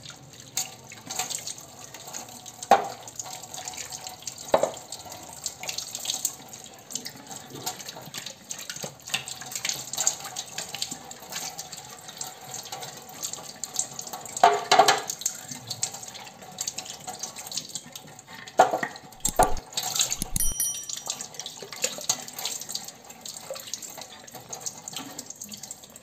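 Tap water running steadily onto a soapy clear plastic fridge door shelf as it is rinsed by hand, with scattered knocks of the plastic being handled.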